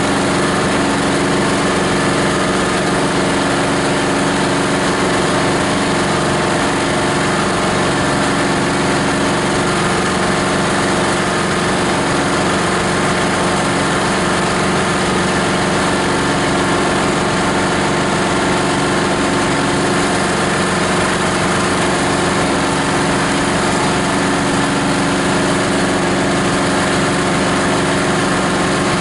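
Steady running of the grinder's 18 HP diesel engine, a constant even drone with no change in speed.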